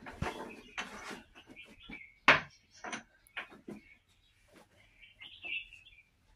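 Small birds chirping, with a string of sharp knocks and clicks, the loudest about two seconds in.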